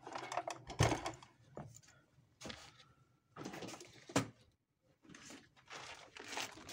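Clicks and knocks of a Juki MO-50E overlock's plastic and metal parts being handled and set down, the sharpest knocks about a second in and about four seconds in.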